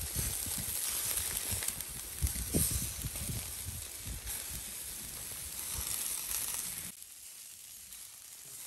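Food sizzling and crackling on a charcoal grill: a steady hiss with scattered pops and low bumps, quieter from about seven seconds in.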